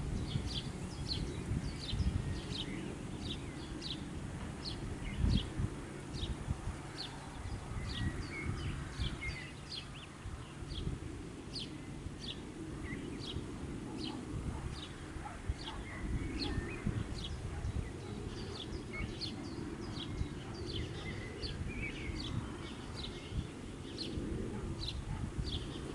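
A small songbird calls with short, high notes repeated about twice a second, with a few softer chirps from other birds. Beneath it runs a low, uneven rumble of outdoor ambience.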